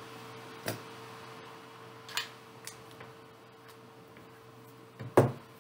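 A few light clicks and knocks from a TS100 soldering iron, its cable and a USB-C power bank being handled and set down on a silicone work mat, with one louder knock near the end. A faint steady hum runs underneath.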